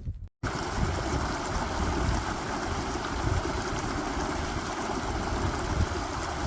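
Stream water rushing and splashing: a steady, dense hiss that starts and stops abruptly.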